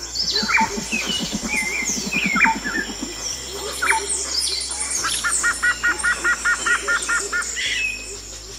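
Woodland birdsong from several birds chirping, with a quick trill of about a dozen evenly repeated notes in the middle, over quiet music.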